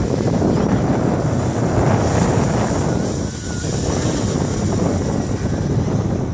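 Radio-control model airplane's motor giving a steady thin high whine in flight, under heavy wind rumble on the microphone.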